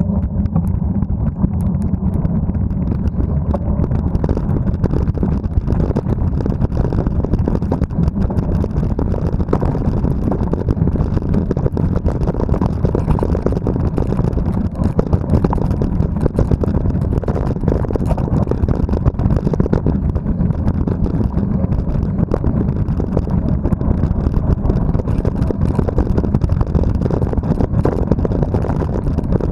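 Steady wind rush buffeting the camera's microphone while a mountain bike rolls fast, at about 30 km/h, down a dirt forest trail. Under the wind, the tyres and frame keep up a scatter of small rattles and clicks over the rough ground.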